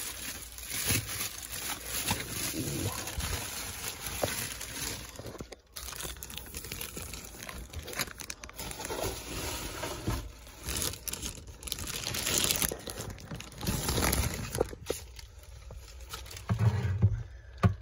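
Bubble wrap crinkling and rustling in irregular bursts as it is unwrapped and pulled away from a hard plastic graded-comic case, with a brief pause about six seconds in.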